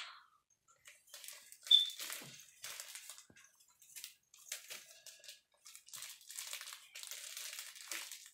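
Thin plastic bag crinkling in irregular bursts as it is squeezed and worked by hand around an egg coated in paint, with one brief sharp high squeak about a second and a half in.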